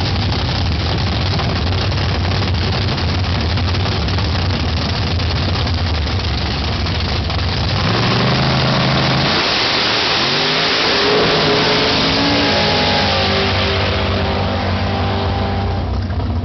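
Dragster engine running loudly at the starting line, then about eight seconds in it launches at full throttle and its pitch climbs as the car accelerates away down the drag strip.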